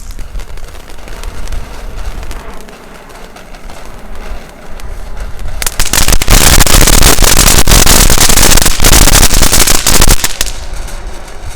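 Wind buffeting the microphone, then a firework fountain spraying with a loud, dense hiss and rapid crackle for about five seconds before it cuts off.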